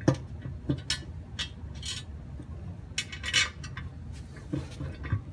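Metal bolts and hand tools clinking and knocking while a transmission pan is being bolted on. Several short, sharp clinks and a few duller knocks come at irregular intervals.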